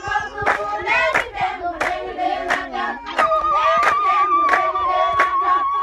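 A group of women singing together and clapping in a steady beat, about two claps a second. From about three seconds in, one high, trilling voice is held over the song.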